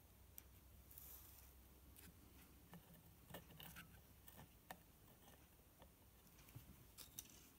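Near silence with a low hum, broken by a few faint, scattered clicks and rustles from fingers handling a small circuit board and its wires.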